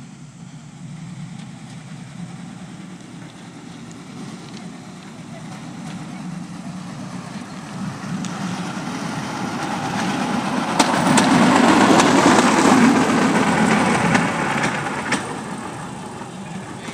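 A bamboo train (norry) running along the rails, its small engine and the wheels' clatter on the track growing louder to a peak about twelve seconds in as it passes, then fading. A few sharp clacks are heard as it goes by.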